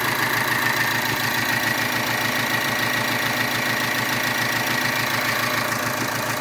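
Volkswagen Amarok 2.0 16v turbo-diesel engine idling evenly with a steady low pulse, just started after a new timing belt, tensioner and idler pulleys were fitted; it runs smoothly, the timing set right.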